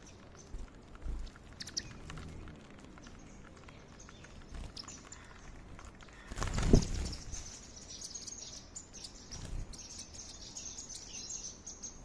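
Indian silverbills feeding on foxtail millet, with many small pecking clicks and soft, high chirps, busiest in the second half. One loud rushing burst about six and a half seconds in stands out.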